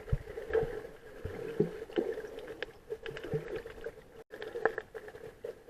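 Muffled sea water sloshing and knocking against an action camera's waterproof housing, with a steady boxy hum and scattered dull thuds.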